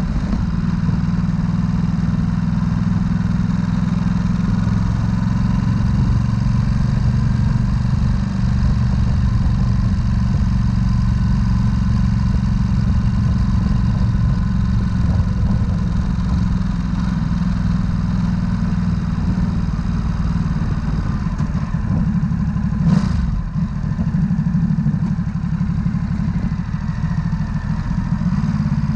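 Ducati SuperSport S's 937 cc L-twin engine running steadily at low city speed, with one short sharp knock late on.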